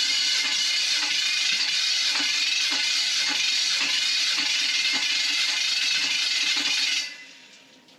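Chevrolet 350 small-block V8 cranking over on its starter for a compression test of cylinder number 8. It makes a steady whirr with an even beat about three times a second and stops abruptly about seven seconds in. The reading that follows is about 125.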